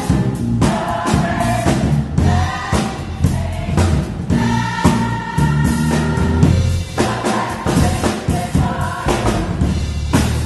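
Gospel choir singing in full voice over electronic keyboard accompaniment, with a steady percussive beat.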